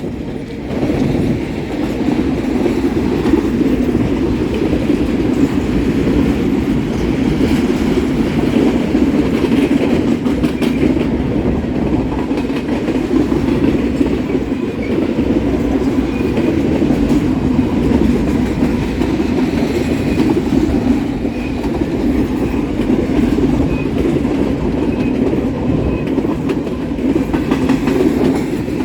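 Freight train of intermodal well cars rolling past, a steady, loud noise of steel wheels on the rails that holds without a break.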